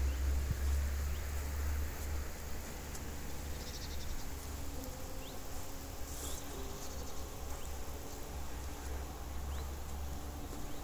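Faint insect buzzing and chirping, with a short rhythmic buzz about four seconds in. A low rumble runs under the first two seconds or so.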